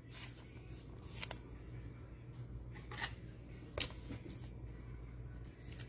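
Faint handling noises of a trading card and its plastic sleeve: a few small clicks and light rustles over a low steady hum.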